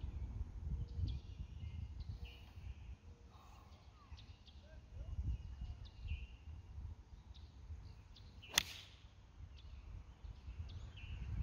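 A 3-iron striking a golf ball off the tee: one sharp impact about eight and a half seconds in. The shot was caught a little heavy.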